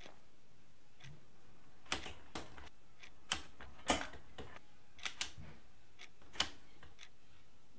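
Folding metal stepladder being handled and opened out: a series of irregular sharp clacks and knocks of its metal legs and joints, the loudest about four seconds in.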